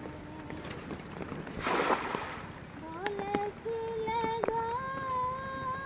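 A thrown cast net hitting the pond water in one brief splash about two seconds in. From about three seconds, a high singing voice holds notes that step from pitch to pitch.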